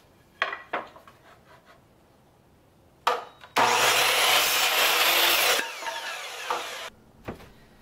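Compound miter saw cutting through a 1x2 wood strip. A few knocks come as the wood is set in place, then the saw starts about three seconds in. It cuts loudly for about two seconds, and the blade then spins down with a falling whine.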